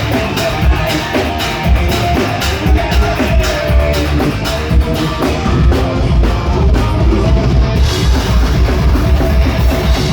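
Metal band playing live: electric guitar over a drum kit with a steady, rapid bass-drum pulse.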